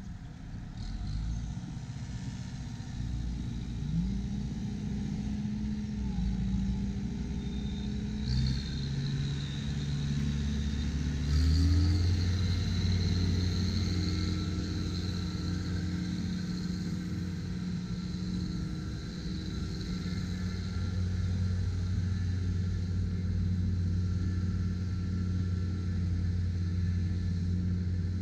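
An engine running, its pitch rising a few seconds in and again near the middle, then settling into a steady hum.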